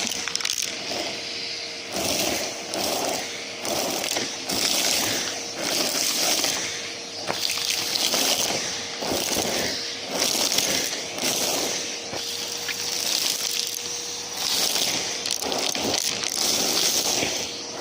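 Numatic James vacuum cleaner running, close-miked, its motor holding a steady whine while debris crackles and scrapes through the hose in surges about once a second.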